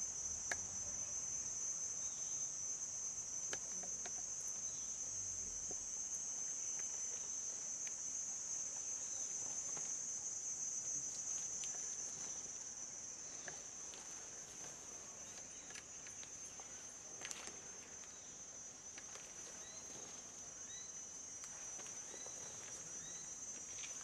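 Insects chirring in one steady, high-pitched drone, easing a little partway through. Faint scattered clicks and scuffs sound over it.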